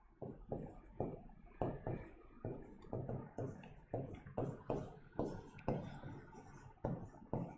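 Pen writing on a board: a quick, uneven run of short, faint scratches and taps, several a second, as letters and numbers are written.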